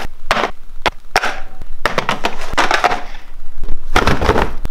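Cardboard boxes being shifted about and set down on a wooden workbench: rough scraping mixed with a run of sharp knocks and thumps.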